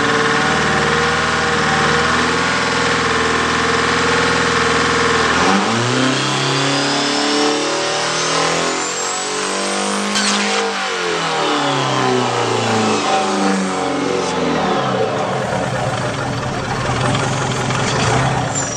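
Turbocharged diesel engine with straight exhaust stacks, held at high revs, then about five seconds in dropping and being revved up and down repeatedly by hand at the throttle, with a turbo whistle rising and then falling.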